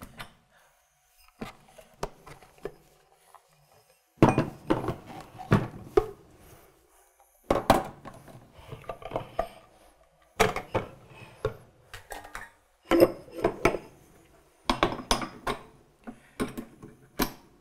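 Plastic food processor attachment parts being handled and fitted onto a stand mixer's outlet: repeated knocks, clicks and clatter in several short bouts with brief pauses between.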